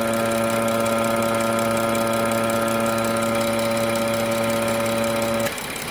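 A failing wastegate vacuum control valve on a BMW N55 engine makes a loud, steady, awful humming over the engine idle. About five and a half seconds in, its electrical plug is pulled and the hum cuts off at once, leaving the engine idling; this shows the valve is faulty.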